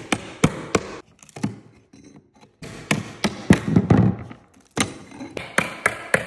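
Wooden carpet tack strips being pried up off a concrete subfloor with a metal putty knife: a series of sharp taps and knocks, with cracking and scraping between them as the nailed-down strip is wedged loose.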